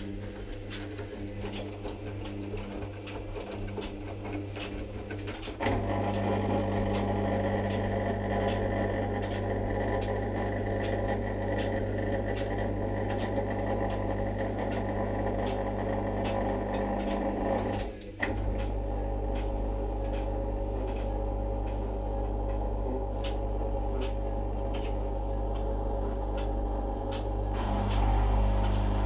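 A steady machine hum made of several held tones, with faint scattered clicks. It grows louder about six seconds in and cuts out briefly around eighteen seconds before running on.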